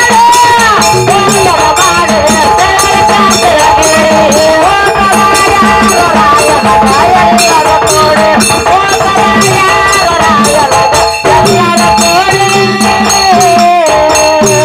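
Kannada dollina pada folk song: a voice sings a sliding melody over a hand drum keeping a steady beat, with small brass hand cymbals clashing and jingling throughout.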